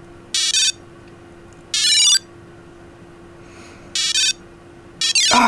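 Digimon virtual-pet bracelet's small speaker playing battle sound effects: four short bursts of electronic beeps, the last one sweeping down in pitch.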